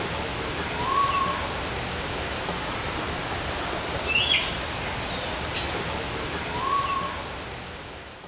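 Looped outdoor ambience of bird calls over a steady rushing noise: a quick high chirp and a short lower whistle, repeating in the same pattern about every six seconds. It fades out near the end.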